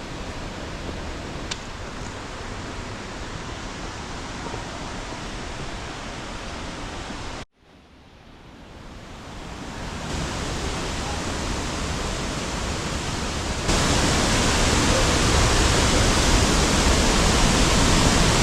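Glen Ellis Falls, a waterfall in heavy flow, making a steady rushing hiss. The sound cuts out abruptly about halfway through, fades back in, and grows louder in two steps toward the end.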